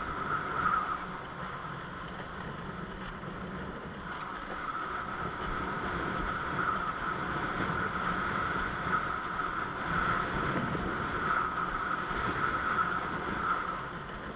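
Fanatic Ultra Cat windsurf longboard sailing over the water: a steady rush of water along the hull mixed with wind on the microphone, growing a little louder from about four seconds in.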